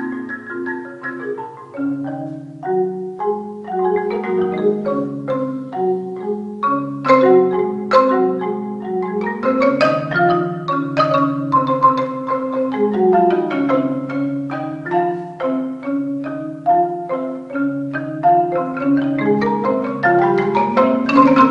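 Percussion ensemble playing tuned mallet percussion, marimba-type instruments, several parts at once in held, rolled notes over a lower line. It grows a little louder near the end.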